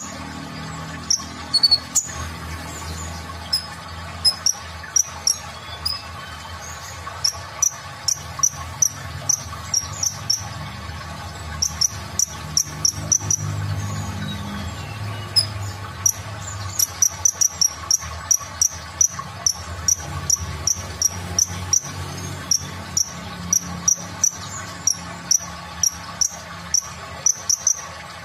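Van Hasselt's sunbird (kolibri ninja) calling: short, sharp, high chips in quick runs of several a second, thickest in the second half.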